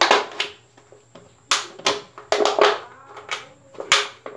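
Thin plastic PET bottle crackling and crinkling in a series of sharp, uneven crackles as a knife pierces and cuts a hole in its side.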